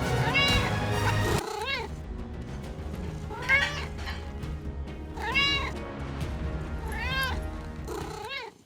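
Manx cat meowing loudly and repeatedly, about six drawn-out meows a second or two apart, over background music. The cat is meowing up a storm in protest at the dishwasher being opened.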